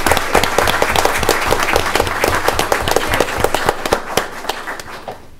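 Audience applauding: dense clapping from many hands that thins out and fades away near the end.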